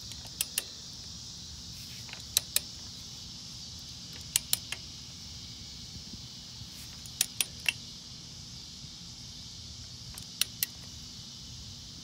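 Sharp metallic clicks in pairs and threes, a group every two to three seconds, from a wrench on the cylinder head bolts as the head is bolted down, working from the middle bolts outward.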